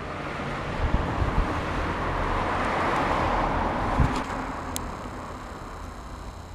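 A road vehicle passing by: its noise swells to a peak about three seconds in and then fades away, over a low rumble.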